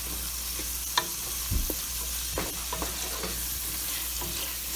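Shrimp, onion and garlic frying in oil in a pan with a steady sizzle, while a utensil stirs them, knocking and scraping against the pan several times.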